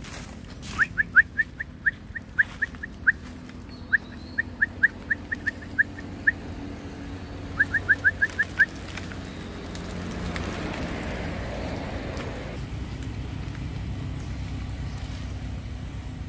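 A bird calling with a long series of short, sharp, downward-slurred chirps at uneven spacing, then, after a pause, a quick run of about six chirps. A soft rush of noise follows a little later.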